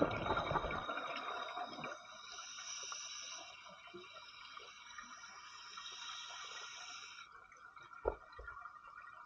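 Scuba diver breathing through a regulator underwater: exhaled bubbles gurgling for the first two seconds, then a long steady hiss of inhaled air that stops about seven seconds in. A single short knock comes about eight seconds in.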